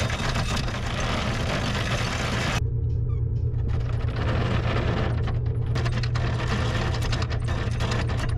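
The trawler's engine runs with a steady low hum. Over it come irregular rattling and clanking from the anchor windlass and chain at the bow as the anchor is let go.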